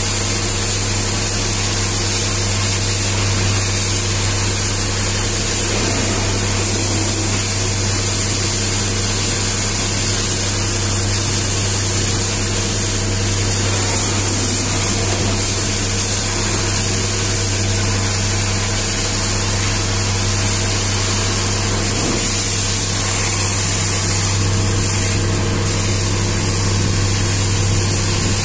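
High-pressure water jet hissing and spattering steadily against a mining dump truck's tyre and chassis, over a steady machine drone with a low hum.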